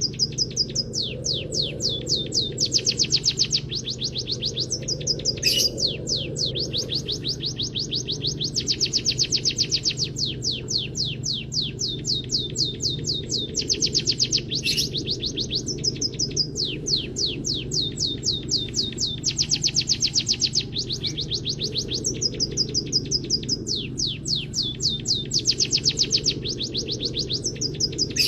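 Looped cage-bird song-training recording of munia song filled with canary-style phrases: rapid high trills of quick sweeping notes, repeated in bursts every few seconds. A steady low hum runs underneath.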